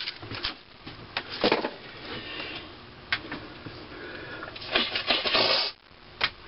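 Metal engine parts clinking and knocking as they are handled and set down on a workbench. A few sharp knocks come in the first two seconds, then a scraping clatter lasting about a second comes around five seconds in.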